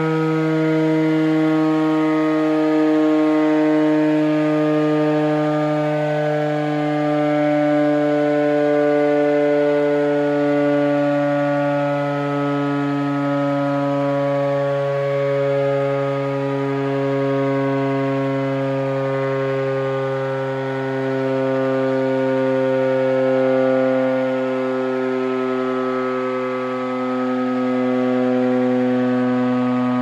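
Air raid siren sounding the nightly curfew warning: one long, unbroken wail whose pitch slowly sinks throughout.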